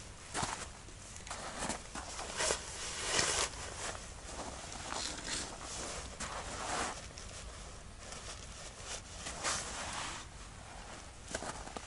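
Boots crunching and shuffling on packed snow, with irregular rustles and scrapes of a winter jacket and gear being handled.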